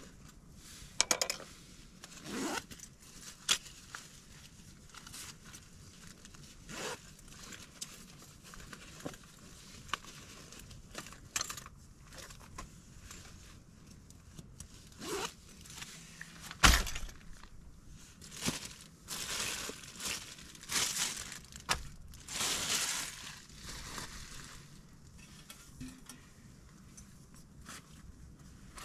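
Handling noises: scattered taps and knocks, with several short bursts of rustling. One sharp knock a little past the middle is the loudest.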